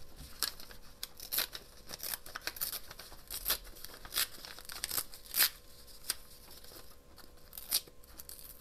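Craft material torn into a strip by hand: irregular sharp rips and crackles, with crinkling as it is handled.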